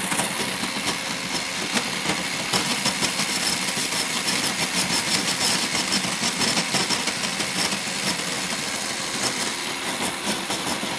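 Electric snow cone machine running steadily, a continuous motor noise with a fast rattle.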